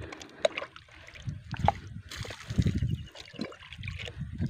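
Irregular water splashing and sloshing as potassium permanganate solution is poured from a cut bottle into a shallow pond.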